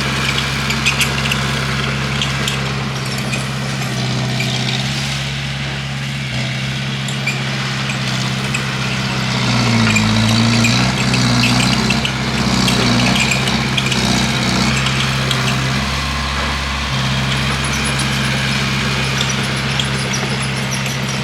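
Bulldozer's diesel engine running steadily, working harder about halfway through, with the pitch wavering and the sound growing louder for several seconds before settling back. Light clanking throughout.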